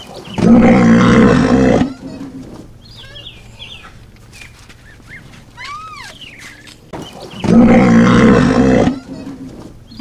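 A large animal's loud, rough roar, heard twice about seven seconds apart, each lasting about a second and a half. Faint bird chirps are heard between the two roars.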